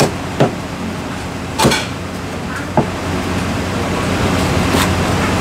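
Heavy Chinese cleaver chopping through roast poultry into a thick wooden chopping block: about five single chops at uneven intervals. A steady low hum runs underneath.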